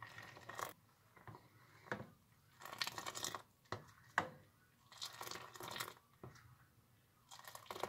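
Metal ladle working milky Kashmiri chai in a steel saucepan: liquid poured back from the ladle and stirred, in short uneven splashing and scraping sounds, with a couple of sharp clinks of the ladle against the pan near the middle.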